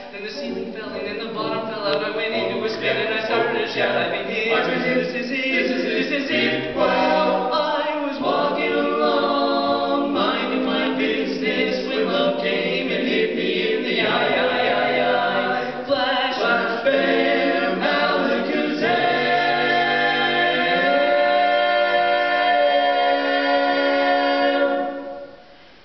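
Barbershop quartet of men singing a cappella in close four-part harmony, with a brief break in the singing near the end.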